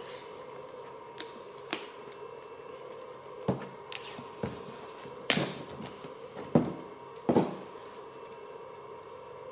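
Grey cloth duct tape pulled off its roll in several short rips while it is wrapped around two plastic bottles, with a couple of light taps at first; the loudest rips come in the second half.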